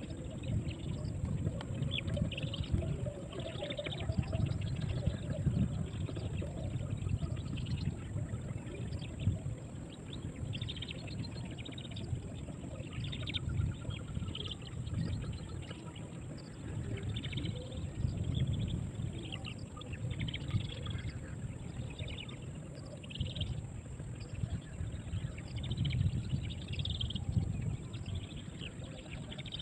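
Outdoor riverside ambience: small birds chirping again and again over a steady low rumble, with a constant thin high-pitched hiss.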